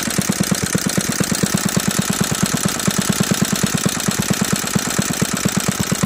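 Briggs & Stratton WMB half-horsepower single-cylinder L-head washing-machine engine running slowly and steadily just after a kick start, with an even putt of about eight firing pulses a second. It is turning over at low RPM.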